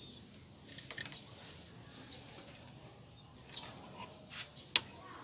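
Faint handling sounds of a trumpet horn and its wires being fitted by hand: light rustling and a few small clicks, the sharpest near the end.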